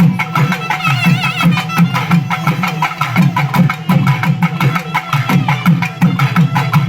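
Drum-led music with fast, dense drum strokes over a steady low sound, and a high wavering melody line briefly about a second in.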